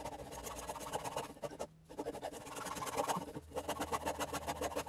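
A blade sawing back and forth through a motorcycle tyre's rubber and cord plies, a continuous rasping scrape broken by two brief pauses.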